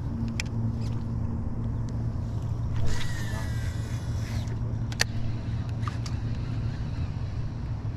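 Steady low hum of the boat's motor. About three seconds in, a baitcasting reel's spool whirs as the line pays out on a cast, falling in pitch as it slows, followed by a sharp click a little later.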